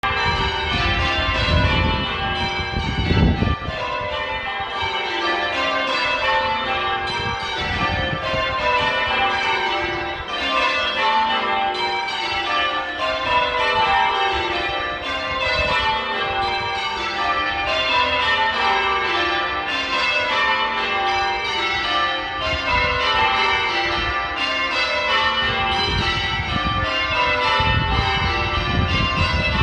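A ring of church bells being rung in changes, the bells striking one after another in quick succession in repeating stepped, mostly falling runs. A low rumbling noise rises under the bells about three seconds in and again near the end.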